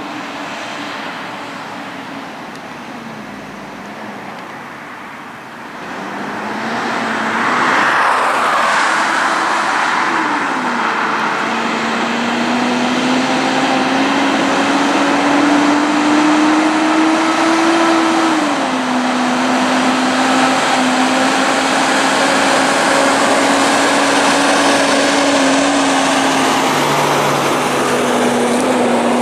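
Diesel prime mover pulling a container semi-trailer, approaching and passing close by with a steady engine note and tyre noise. It grows loud about a quarter of the way in, and its pitch climbs slowly, then steps down at a gear change about two-thirds of the way through.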